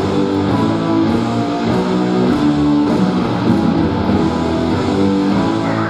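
Backing music with guitar, played loud and steady over a hall's sound system.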